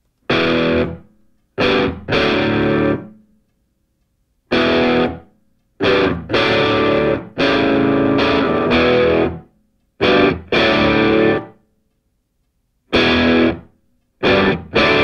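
Background music: distorted electric guitar playing a stop-start riff, chords held for a moment and cut off sharply, with silent breaks between them.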